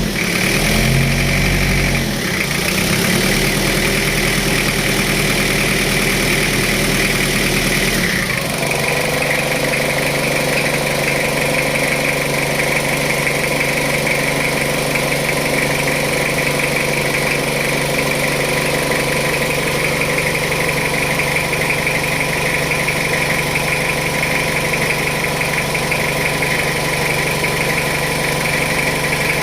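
Jeep Wrangler engine running, with one brief rev about a second in. About eight seconds in the low rumble drops away and it settles to a steady idle.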